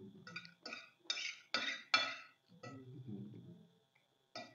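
Metal fork clinking and scraping on a ceramic dinner plate while scooping rice, about five sharp ringing strikes in the first two seconds and two more near the end.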